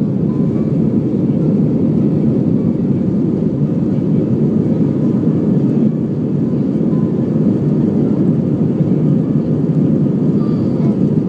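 Steady, loud cabin noise of an Airbus A320 in its climb after takeoff: the jet engines and rushing airflow heard from inside the passenger cabin, a low even roar that does not change.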